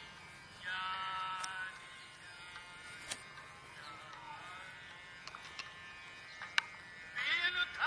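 Background music: a held, buzzy note about a second in, then quieter stretches broken by a few sharp clicks, and the melody returning near the end.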